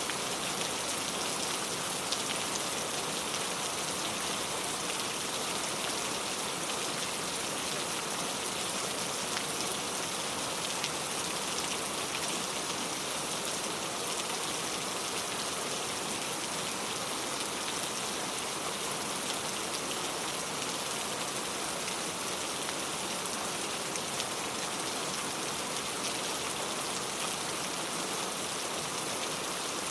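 Steady rainfall, a continuous even hiss of rain with fine patter of drops landing on surfaces.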